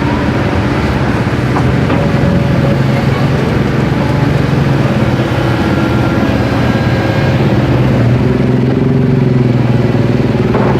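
An engine running steadily at close range: a continuous low hum with no break, a wavering higher tone joining it in the last few seconds.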